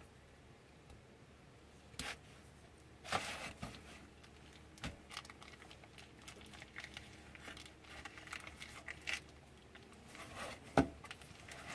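Plastic meat packaging being torn open and crinkled, with scattered rustles and clicks and a sharper tap near the end.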